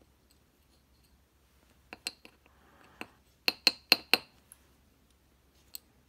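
Small lock pins from a Dorma 3003 cylinder plug clinking as they drop into an aluminium pin tray: two clicks about two seconds in, one more a second later, then a quick run of four ringing clinks.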